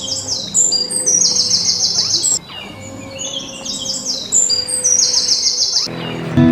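A songbird singing two identical phrases, each a falling run of high, clear notes ending in a fast, even trill, with a short gap between them.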